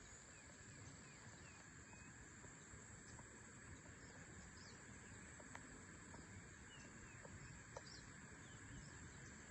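Faint outdoor ambience: a steady high-pitched insect drone with scattered short bird chirps.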